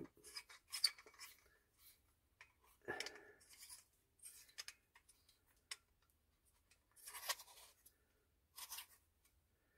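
Faint, scattered clicks and scrapes of a metal lightsaber hilt being handled as its pommel section is turned on tight.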